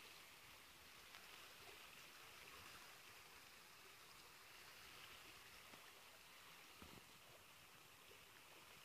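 Near silence: a faint steady hiss with a few faint small ticks.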